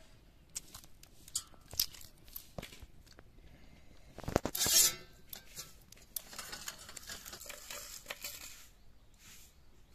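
Shell of hard-boiled eggs being cracked and peeled off by hand: scattered small crackles and clicks, with a louder burst of crunching about four seconds in.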